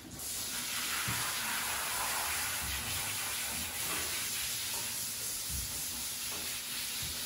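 Water spraying steadily from a hose's hand-held spray nozzle onto a horse's coat: a continuous hiss.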